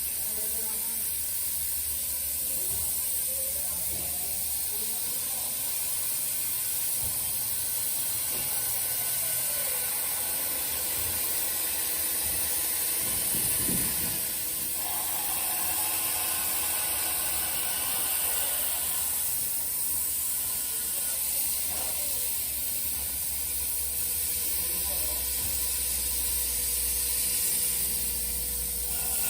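CNC plasma cutter hissing steadily as it cuts thin sheet steel, with faint whining tones that rise and fall now and then.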